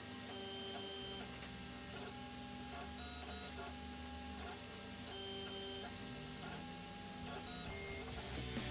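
3D printer's stepper motors whining as it prints: a string of steady tones that jump in pitch every fraction of a second as the print head changes direction and speed.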